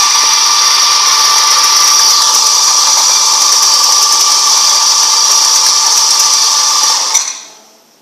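Electric coffee grinder motor running steadily with a high whine while grinding coffee beans, then winding down and stopping about seven seconds in.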